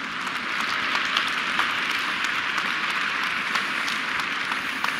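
Large audience applauding; the clapping builds at the start, holds steady, and begins to die down near the end.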